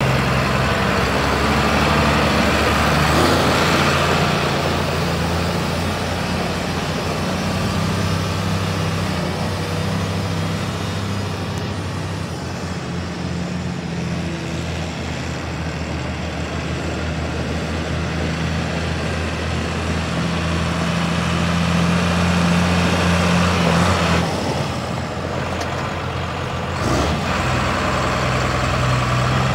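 A 2003 New Holland tractor's diesel engine running as the tractor drives off and comes back, its pitch stepping up and down several times as it changes speed.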